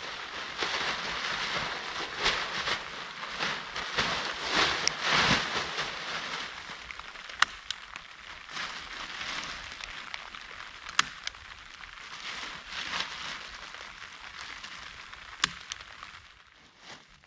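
Plastic tarp rustling and crinkling as it is unfolded and dragged over the ground, loudest in the first six seconds, with a few sharp clicks.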